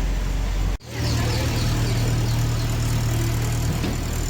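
Vehicle engine running steadily. Just under a second in the sound cuts out briefly, then resumes with a different low pitch.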